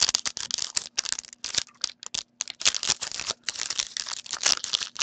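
Foil trading-card pack wrapper crinkling and tearing as it is pulled open by hand, a quick, irregular run of crackles.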